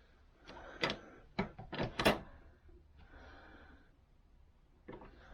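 Reloading press being worked with a star-crimp die: a cluster of sharp metallic clicks and clunks, the loudest about two seconds in, then a softer sliding, scraping sound.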